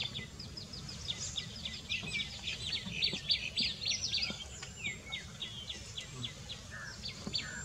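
Small wild birds chirping busily, with many quick, short, high notes several times a second over a low steady background rumble.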